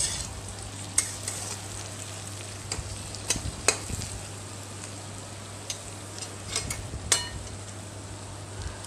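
Sliced onions frying in oil in a kadhai, stirred with a flat metal spatula: a steady sizzle broken by sharp scrapes and knocks of the spatula against the pan, about half a dozen times. The onions are being fried down until soft and brown.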